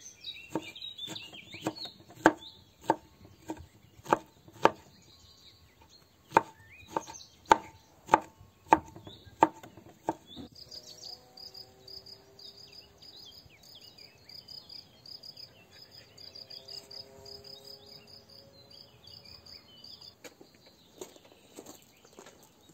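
A kitchen knife chopping zucchini flesh on a wooden cutting board, about a dozen sharp strikes over some ten seconds. Then a rapid run of high chirps with other bird calls around it, and near the end a few footsteps on gravel.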